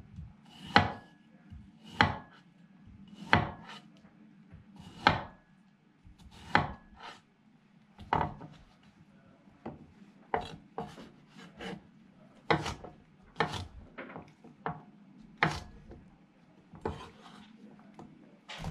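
Chef's knife chopping cucumber on a wooden chopping board: a sharp knock each time the blade meets the wood, about once a second.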